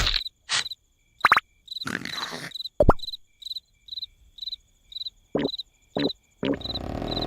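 Crickets chirping in an even rhythm, about two to three short high chirps a second, as a cartoon night-time sound effect. A few brief, sudden cartoon sound effects cut in over it, and near the end a louder steady noise sets in.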